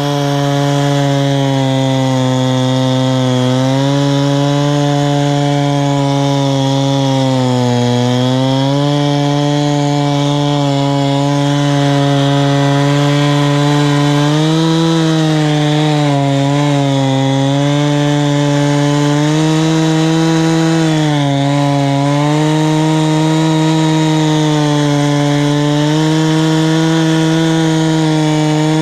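Husqvarna chainsaw running at full throttle on a chainsaw mill, ripping lengthwise through a log. The steady engine note sags in pitch a few times as the cut loads it, then picks back up.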